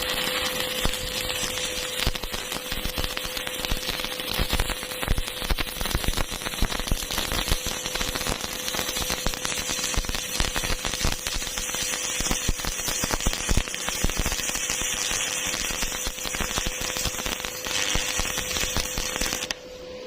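Electric arc welding: the arc crackles and spits continuously over a steady hum, then cuts off about a second before the end.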